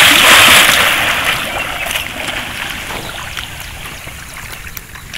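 Water in a stone-lined well splashing and churning after a person jumps in: loudest at the start, then slowly dying away into lapping with scattered drips.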